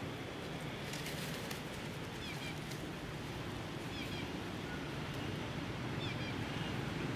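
Short, high chirping animal calls every second or two over a steady low outdoor hum.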